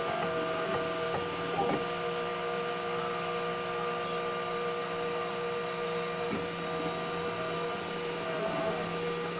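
3D printer's stepper motors running during a print: several steady whining tones over a low hiss. The tones shift pitch or drop out briefly every few seconds as the moves change.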